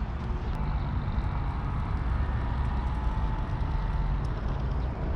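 Cruiser skateboard wheels rolling over pavement: a steady low rumble with a few light clicks as the wheels cross joints and grit.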